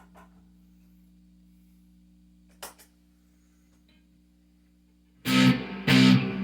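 Guitar amplifier idling with a faint steady hum and one small click. About five seconds in, an electric guitar comes in loud and distorted, with chords struck in short repeated hits.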